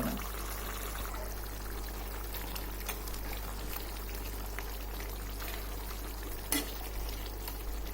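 Country chicken curry boiling hard in a pan on high heat, a steady bubbling hiss as its water is boiled down. A brief knock sounds about six and a half seconds in.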